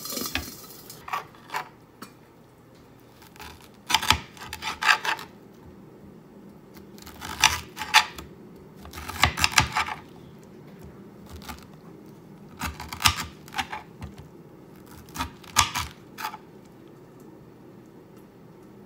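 Chef's knife cutting through a peeled pineapple and knocking on the cutting board, in about six short runs of crisp cuts with quiet pauses between them.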